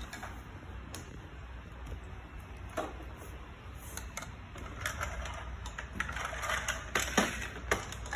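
Small plastic toy vehicles being handled and rolled across a tile floor: scattered light clicks and clatter, busier in the second half.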